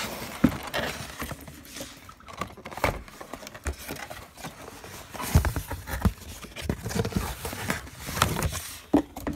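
Cardboard shipping box being handled and opened by hand: irregular knocks, scrapes and rustles of the cardboard and its flaps, with a few sharper knocks about halfway through and again near the end.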